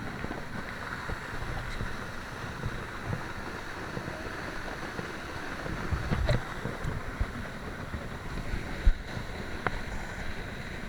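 Steady rush of a waterfall with wind buffeting the camera microphone. There are a few sharp knocks, about 6 and 9 seconds in.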